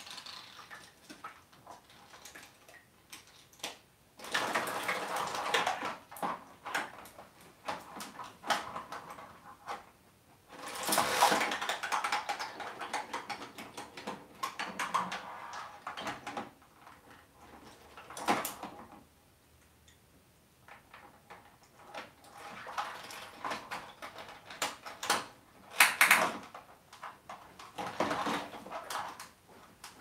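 African grey parrot splashing and dabbling in a shallow water dish while playing with a toy turtle, in several separate spells of splashing with sharp clicks and knocks between them.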